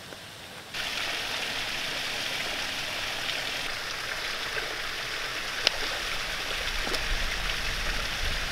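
Small stone waterfall splashing steadily into a pond: an even rush of falling water that cuts in abruptly about a second in.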